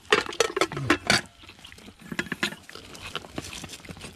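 Clicks and clatter of people eating a meal, loudest in the first second or so, with a short sound falling in pitch among them, then fainter scattered clicks.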